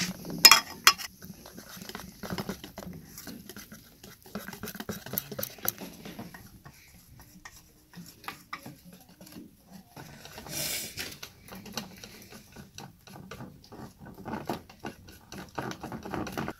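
Wire whisk stirring batter in a stainless steel bowl, with frequent quick clicks and rattles of the wires against the metal and a few sharper knocks about half a second in.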